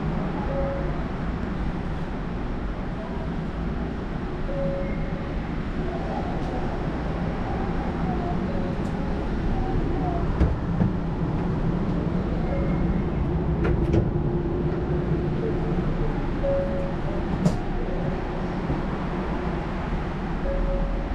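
Steady hum inside an Osaka Monorail car standing at the platform, with a few sharp clicks and knocks about halfway through as a gangway door between cars is handled, and another click near the end.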